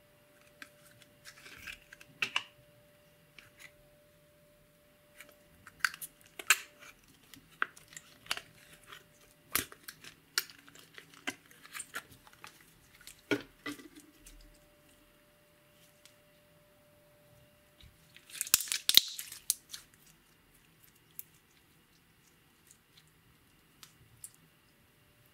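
Close-miked clicks, taps and crackles from hands handling a small plastic cosmetic container and white slime, irregularly spaced, with a denser crackling burst about eighteen seconds in.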